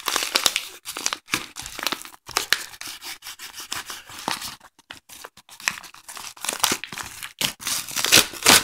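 A knife blade slitting open a padded bubble mailer, then the paper and bubble wrap being torn and crinkled by hand: a run of irregular scratchy rasps and rips, loudest near the end.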